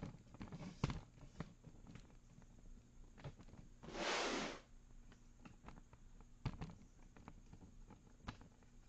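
Scattered light clicks and knocks of hands handling tools and parts, with one brief rush of noise, like a rustle or hiss, about four seconds in.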